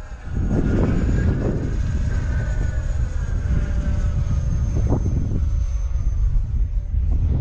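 Gusty wind buffeting the microphone, a loud low noise that sets in about a third of a second in. Beneath it, the faint whine of an RC model jet's 64 mm electric ducted fan flying overhead, its pitch drifting slowly up and down.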